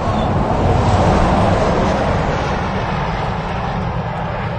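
A vehicle passing on the highway beside the parked truck. Its road and engine noise swells about a second in and then slowly fades, over a steady low rumble.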